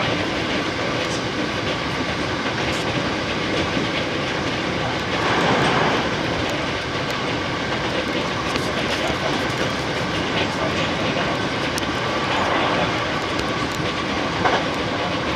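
Hankyu Kyoto Line electric train running, heard from inside the front car: a steady rumble and hiss of wheels on rail with scattered clicks over rail joints and two brief swells.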